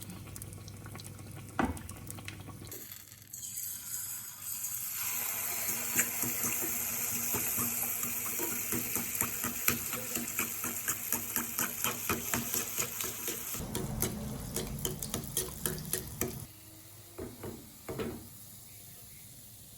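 Water running from a tap into a sink for about ten seconds, starting a few seconds in, with many light clicks and knocks like dishes or hands being washed under it.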